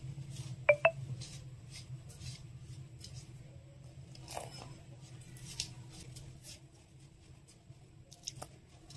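Faint squishing and rustling of a hand mixing rice flour with water in a steel bowl, over a low steady hum. A short double squeak sounds just under a second in.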